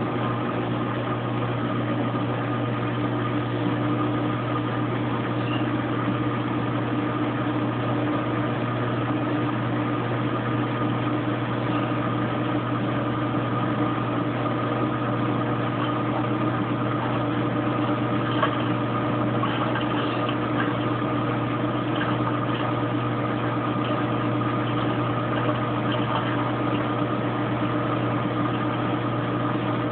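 Kenmore Oasis top-load washing machine in its high-speed spin, a steady hum with constant tones that holds the same pitch throughout.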